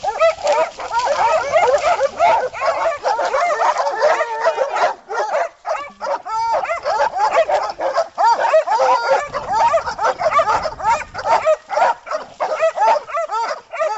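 Dogs barking and yipping rapidly and without let-up at a wounded hog, with a few short breaks.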